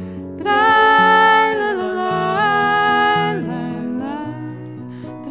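A woman singing long, held wordless notes that glide from pitch to pitch, with acoustic guitar and digital piano accompanying her.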